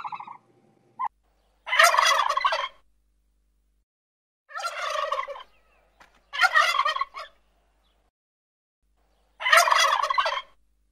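Male turkeys gobbling: four separate rattling gobbles, each about a second long, with pauses of one to two seconds between them.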